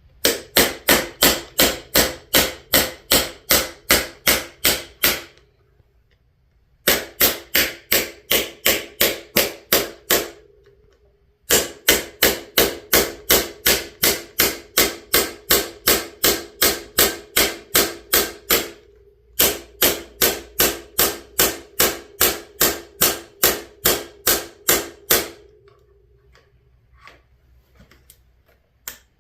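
Rubber mallet blows struck in quick, even runs of about three a second, each with a short ringing note. The blows come in four runs broken by brief pauses.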